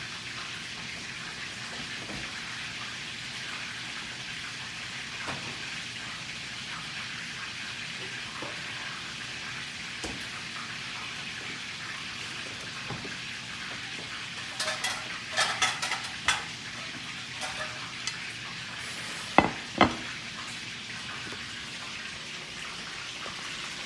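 Chicken drumsticks frying in cooking oil in a pan, with a steady sizzle throughout. A cluster of sharp clicks comes past the middle, then two louder clicks a few seconds later.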